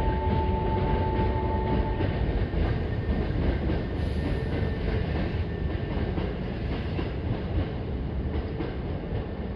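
Maroon Hankyu electric train pulling out and rolling past: a steady rumble of wheels on rail with faint clicks. A steady whine cuts off about two seconds in, and the rumble eases slightly as the train moves away.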